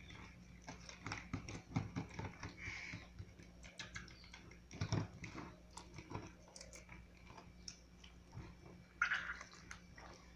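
A bare hand squishing and mashing a wet mixture of raw egg, tomato and crushed chips in a bowl: irregular wet squelches with small crackles.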